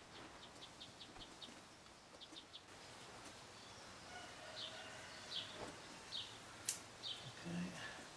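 A small bird chirping: a quick run of short high chirps, then from about halfway slower, louder chirps that fall in pitch, roughly one a second. A single sharp click comes near the end.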